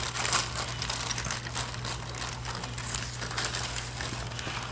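Clear plastic zip-lock bag crinkling as it is handled, an irregular run of crackly rustles.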